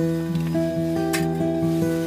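Soft background music of held notes changing slowly, with a short noise about a second in.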